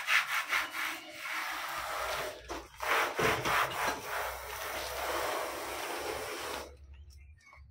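Linear guide bearing block sliding along its steel rail by hand, a steady scraping rub that stops about a second before the end. The block has just been cleaned in kerosene, greased and refitted.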